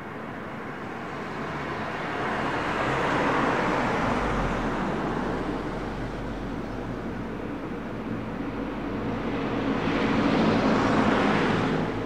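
Road traffic: two vehicles pass in turn, the tyre and engine noise swelling to a peak about three seconds in and again, a little louder, near the end. A low engine hum sets in about four seconds in.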